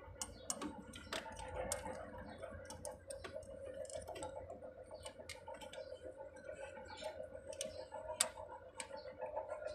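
Faint, irregular clicks and light taps of small metal parts and hand tools being handled while a diesel fuel injection pump is being assembled, with a faint steady hum behind them.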